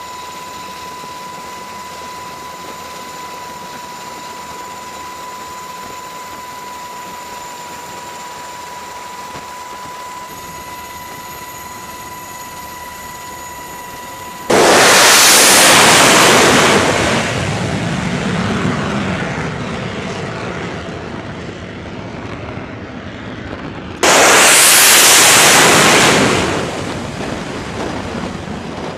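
Two F-35C fighter jets launched one after the other off a carrier's steam catapults: each launch comes in suddenly as a very loud jet roar that fades over several seconds, the second about ten seconds after the first. Before the launches, a steady hum with a thin, high, steady tone.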